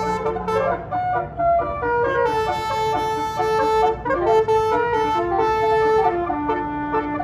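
Bus telolet horn of the Basuri type, a multi-tone horn, playing a tune of held notes that step up and down in pitch, with several tones sounding together.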